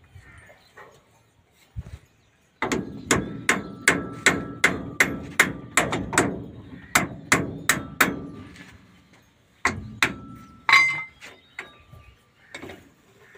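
Hammer and chisel being struck against the loose pinion nut on a Hino truck's rear differential to tighten it: a run of sharp metallic blows, about two or three a second, with a slight ring. The blows start a couple of seconds in, break off for about a second and a half, and come back with a few more, one of them especially hard.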